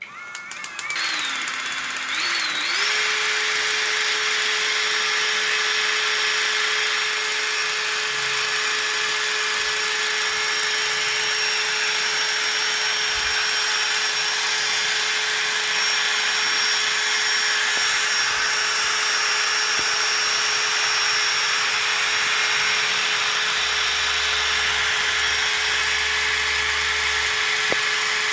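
Small electric motor spinning up over the first three seconds, then whining at one steady pitch while a Honda Civic ECU is bench-tested for spark, injector pulse and fuel pump operation.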